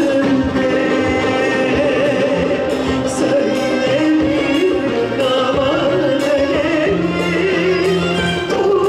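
A woman singing a Turkish song solo into a microphone over musical accompaniment, with a wavering vibrato on her held notes.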